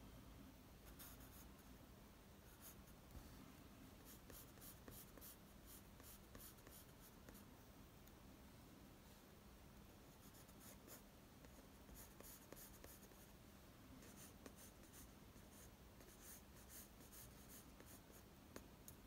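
Faint scratching of a graphite pencil on paper, in runs of quick, short sketching strokes with brief pauses between them.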